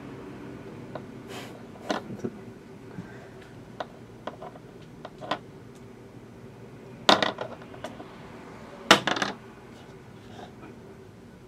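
Small hard objects clicking and clattering on a hard surface: scattered single clicks, then two louder rattling clusters about seven and nine seconds in, over a faint steady hum.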